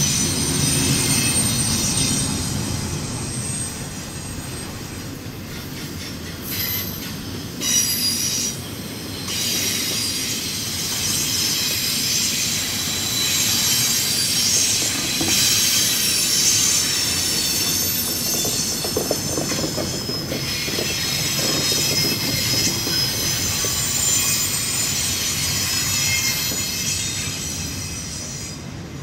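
Freight train cars rolling past, with steady high-pitched wheel squeal over the rumble of the wheels and some clickety-clack at the rail joints.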